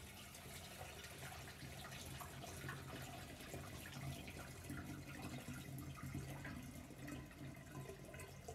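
Cooled mugwort and lemon brew trickling steadily from a saucepan through a mesh strainer and funnel into a glass demijohn.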